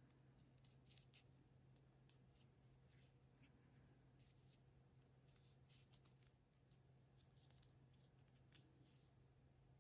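Faint scratchy rustling and scraping of a Seiko 5 SNK807's woven nylon strap being pulled through its steel buckle and keepers by fingertips, in many short scrapes, over a steady low hum.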